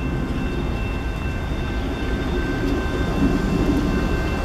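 Two NYSW diesel locomotives running light around a curve, with a steady low engine rumble that swells a little about three seconds in. A thin, steady high-pitched squeal of wheels on the curved track rides over it.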